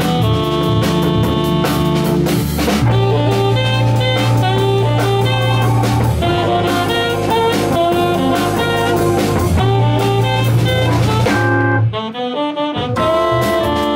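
A small jazz band playing live: a two-manual drawbar organ, an archtop electric guitar and a drum kit. Near the end the band stops for about a second, then comes back in.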